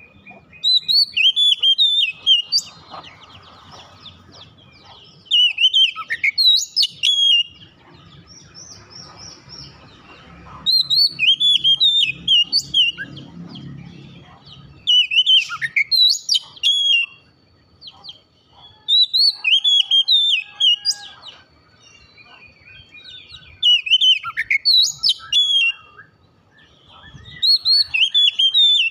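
Oriental magpie-robin (kacer) singing: seven bursts of loud whistled phrases with quick falling notes, each about two seconds long, with softer twittering between.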